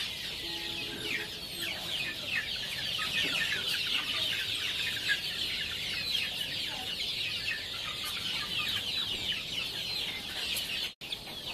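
A flock of young native chickens peeping, many short high falling cheeps overlapping without pause, with a lower cluck about a second in.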